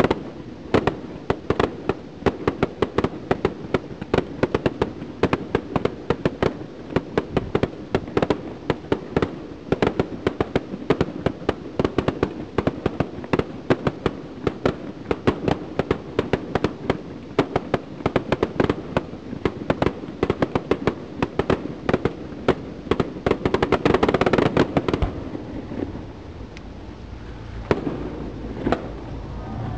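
Aerial fireworks going off in rapid succession: a dense string of sharp bangs, several a second, with a louder rushing burst about three-quarters of the way through, then fewer bangs near the end.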